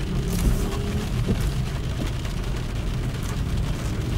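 Car driving on a rain-wet road: a steady low rumble of engine and tyres with the hiss of rain and spray, and a couple of brief crackles.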